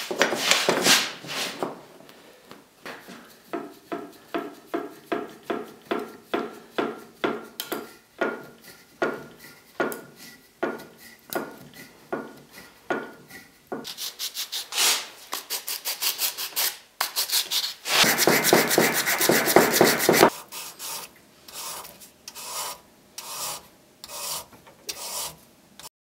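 Sandpaper rubbing back and forth on the wooden handle of a carving chisel, in short strokes about two a second. For a couple of seconds past the middle the strokes run together into a continuous scrub.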